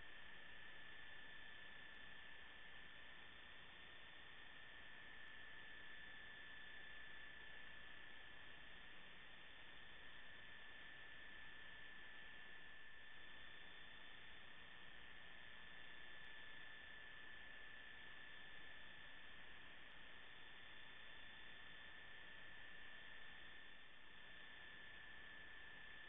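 Faint steady electrical hum and hiss with a thin high whine, unchanging throughout; no game sounds are heard.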